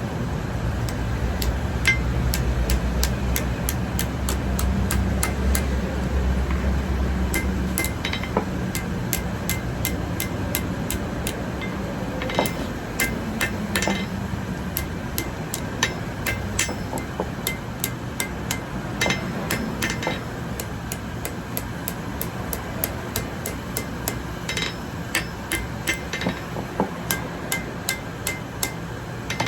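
Blacksmith's hammer striking hot metal on an anvil in a steady rhythm of about two blows a second, each strike ringing. A low steady hum sounds under the first eight seconds or so, then fades.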